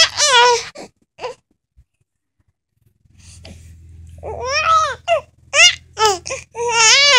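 Young baby fussing: short, high-pitched whiny cries, one at the start and then a run of them in the second half. A low steady hum sits underneath from about three seconds in.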